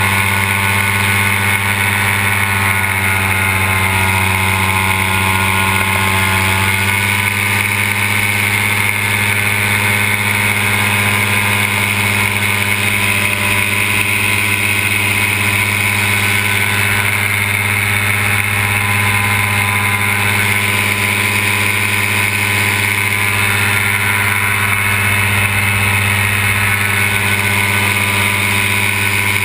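Simonini two-stroke paramotor engine and propeller running steadily at cruising throttle in flight, with a slight change in the engine note about seven seconds in.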